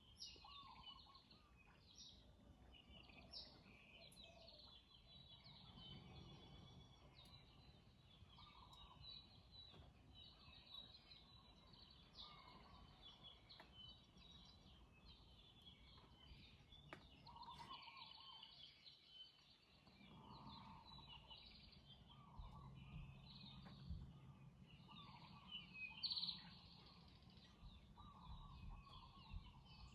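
Many wild birds chirping and calling over one another, faint, in a steady chorus of short high notes with lower calls mixed in; a low rumble joins in the second half, and one call stands out louder near the end.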